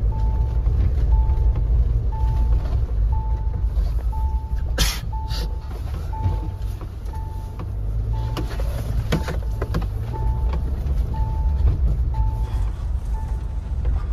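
Mahindra Thar driving: a steady low engine and road rumble, with a dashboard warning chime beeping about once a second throughout. Two sharp knocks, about five seconds in and again about nine seconds in.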